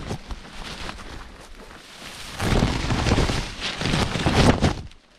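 Loud rumbling, rustling noise on the microphone. It swells up about halfway in, runs for a couple of seconds, and then drops away just before the end.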